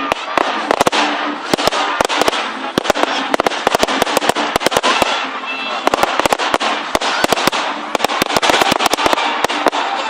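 Fireworks going off in rapid succession: a dense run of sharp crackling bangs, several a second, over voices in the crowd.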